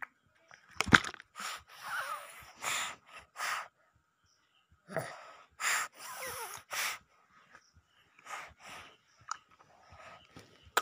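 Breathy, hissing voice sounds at very close range: a run of short wheezy gasps and puffs, some with brief squeaky pitch glides, with a sharp bump about a second in.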